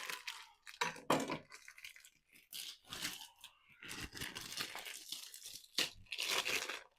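Plastic packaging around a raw brisket being slit with a knife and pulled open, crinkling and tearing in irregular bursts.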